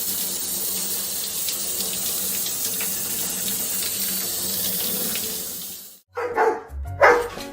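Water running steadily from a tap, a continuous splashing hiss that stops abruptly about six seconds in.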